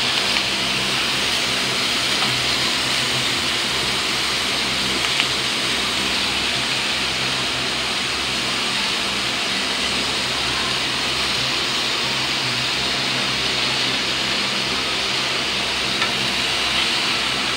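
Meat sizzling steadily on the hot grill plate of an Imarflex 8-in-1 electric griller, a constant hiss over a low steady hum, with a faint click or two as vegetables are set on the plate.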